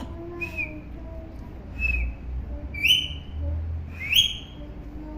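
Parrot giving short, shrill whistled calls that sweep upward, four in all; the two near the end are the loudest.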